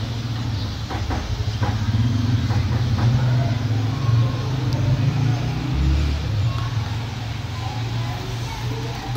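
Steady low hum, like a motor or traffic, with a few faint clicks about a second in and faint voices in the background.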